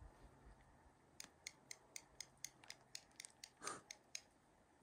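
Hand-held squirrel call, its pieces tapped together to call squirrels: a faint run of about a dozen sharp clicks, roughly four a second, with one softer rasp among them.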